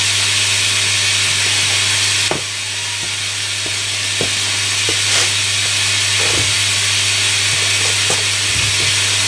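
Hoover Electronic A3172 washing machine in its rinse: a steady rushing hiss of water over a low steady hum, easing a little about two seconds in, with occasional soft knocks from the drum.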